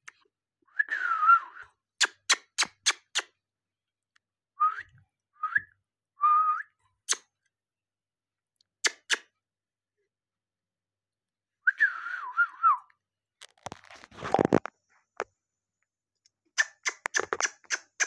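Alexandrine parakeet giving short whistled calls and chirps, some falling and some warbling in pitch, separated by quick runs of sharp clicks. A short burst of rustling noise comes a little after the middle.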